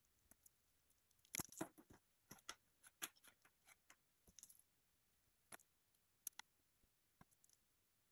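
Faint clicks and light knocks of plastic PVC pipe fittings being handled and set down on a tabletop. There is a quick cluster of taps about a second and a half in, then single ticks spaced a second or so apart.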